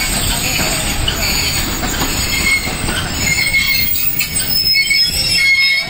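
A train running along the track, its steel wheels squealing on the rails now and then over a steady rumble and clatter of the carriages, the squeals coming more often in the second half.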